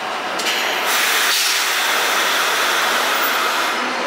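Loud compressed-air hiss from a standing vintage R1–R9 'Arnine' subway train's air system, starting abruptly about half a second in, growing stronger after about a second and cutting off near the end.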